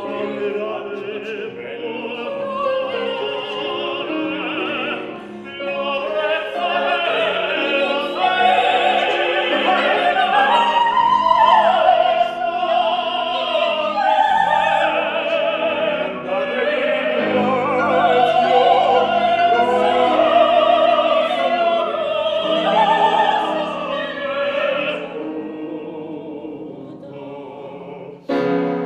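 Operatic singing of an Italian text, the held notes wavering with vibrato. It grows fuller towards the middle and fades away over the last few seconds.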